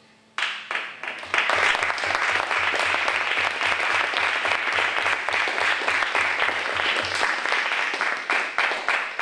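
Audience applauding: the clapping breaks out suddenly about half a second in, swells a second later into dense applause, and thins to scattered claps near the end.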